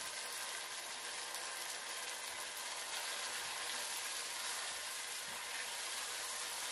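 Onion, ginger, garlic, dried chillies and freshly added tomato sizzling steadily in hot oil: the tempering for a sambar, frying until the tomato softens.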